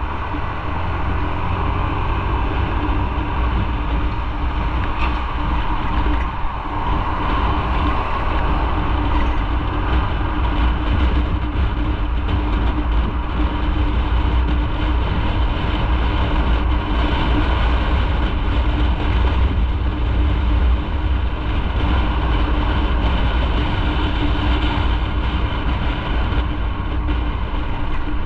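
Motorcycle riding at a steady speed, heard as a heavy low rumble of wind on the microphone, with engine and road noise underneath holding a steady pitch.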